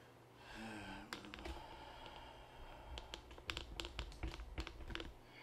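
Handling noise from hands moving things on a desk close to the microphone. A quick, irregular run of sharp clicks and taps with dull knocks underneath starts about three seconds in.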